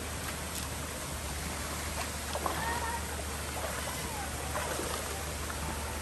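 Steady rush of flowing river water, an even hiss of running water with faint voices in the distance.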